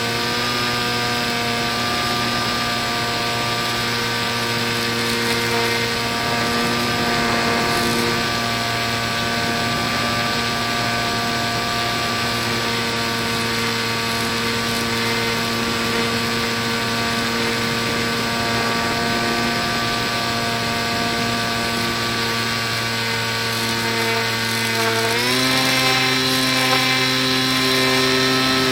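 Electric motor and 7x5 propeller of an RC Factory Step One model plane running at steady cruise throttle, a constant whine. About 25 seconds in the throttle is raised and the pitch steps up for the last few seconds.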